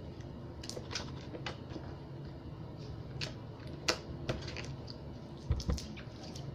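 Glitter slime being squeezed and stretched by hand, giving irregular small clicks and pops, with a couple of low thuds about five and a half seconds in.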